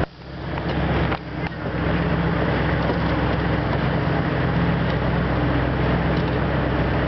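Small motorboat's engine running steadily at cruising speed, a low even hum under a broad hiss, dropping out briefly near the start.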